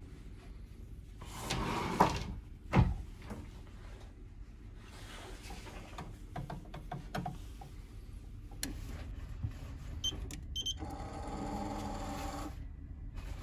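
Two sharp knocks, then short high keypad beeps as a code is keyed into an Indel B Safe 10 E Plus electronic in-room safe, followed by about two seconds of motor whirring from its lock that stops abruptly.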